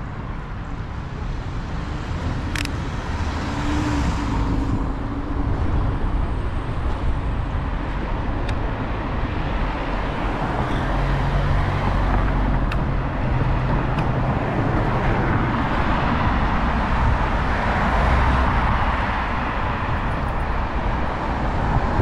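City road traffic with wind rushing over the microphone of a moving bicycle, as cars pass alongside. The noise swells a few seconds in, with a few sharp clicks.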